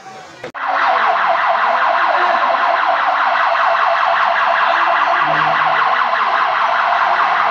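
Electronic alarm siren sounding loud and steady with a fast warble, starting suddenly about half a second in.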